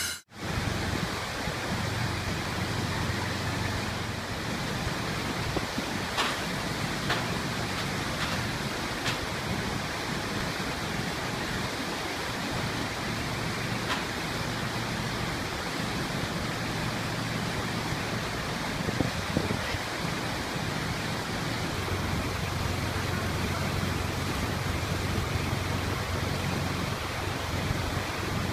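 Large crawler bulldozer's diesel engine running steadily, a low rumble under a constant hiss, with a few faint clicks.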